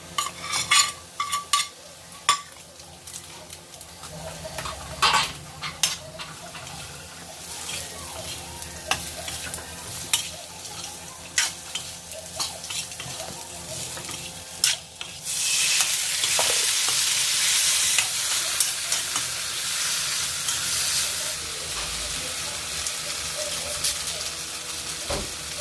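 Onion and garlic frying in oil in a pan, with a spatula clicking and scraping against the metal. About fifteen seconds in, the sizzle suddenly jumps much louder and stays loud.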